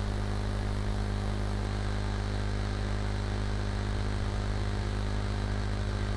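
A steady low hum with a layer of hiss, unchanging throughout.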